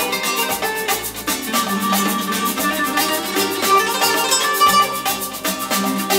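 Music with a quick steady beat played through a pair of Aurelia Magneta II hi-fi loudspeakers, picked up in the room by a camera's built-in microphone.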